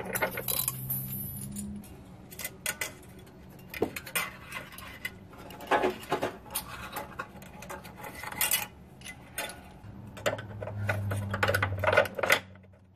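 Steel hitch mounting bolts and hardware clinking and rattling against the unibody frame as they are worked into place by hand: scattered, irregular metallic clicks. A low hum comes in for a couple of seconds near the end.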